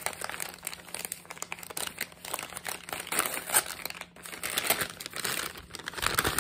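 Brown paper bag crinkling and rustling in the hands as it is opened, a run of irregular crackles.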